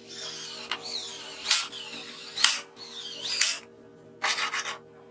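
Cordless drill driving screws into aluminium shaft support blocks in several short bursts, its motor whine bending in pitch within each burst. A brief rattling burst follows about four seconds in.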